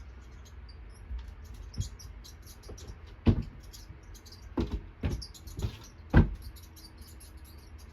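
Rapid high-pitched mouse squeaks from a video made for cats, played through a speaker, with several sudden thumps, the loudest about three and six seconds in.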